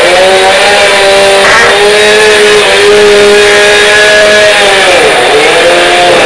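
An engine running with a steady pitched hum; the pitch drifts slightly and dips briefly about five seconds in.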